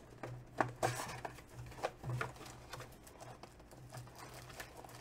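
Hands handling and opening a cardboard Panini Ascension basketball card box: scattered light taps, scrapes and rustles of cardboard, with a few sharper taps in the first couple of seconds.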